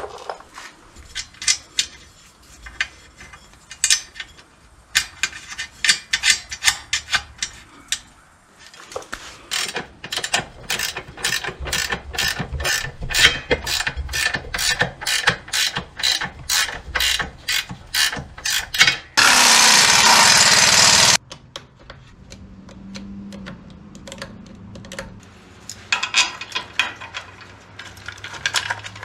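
Ratcheting wrench clicking as it is worked back and forth on a bolt, in runs of quick, evenly spaced clicks. A loud, steady hiss lasting about two seconds breaks in past the middle.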